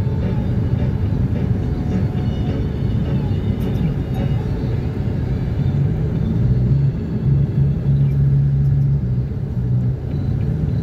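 Car driving at motorway speed: a steady low rumble of road, tyre and engine noise.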